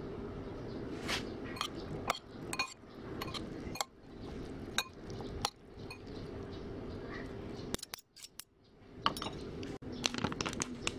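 Metal spoons clinking and scraping irregularly against a bowl while tossing a wet minced-beef salad, over a steady low background hum. The clinking drops out briefly about eight seconds in.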